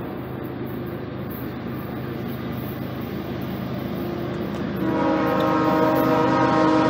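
Low rumble of an approaching freight train, then the locomotive's air horn sounds a steady multi-note chord from about five seconds in.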